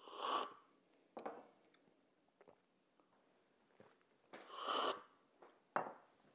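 Two loud, air-filled slurps of brewed coffee from cupping cups, one at the start and another about four and a half seconds later, with a few short, softer noises between.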